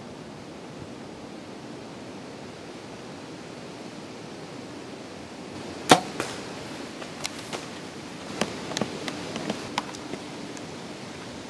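Compound bow (Bowtech Destroyer 350) shot: one sharp crack of the string's release about six seconds in, over a steady hiss of wind. A scatter of lighter snaps and crunches follows over the next few seconds.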